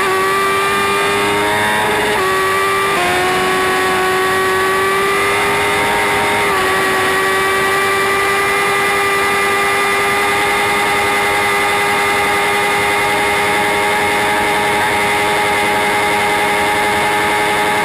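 Sport motorcycle engine held at high revs at speed: a steady high-pitched drone over a rushing noise. The pitch dips briefly a few times in the first seven seconds, then holds level.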